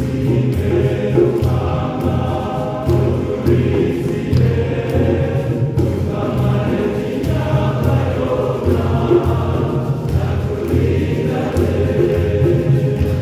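A choir of many voices singing a lively church song in chorus, over a steady low beat with percussion.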